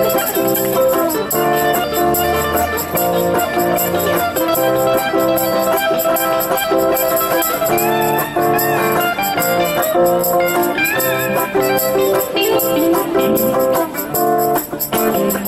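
Live band playing an instrumental passage: electric lead guitar over acoustic guitar accompaniment, with a few bent notes from the lead near the middle.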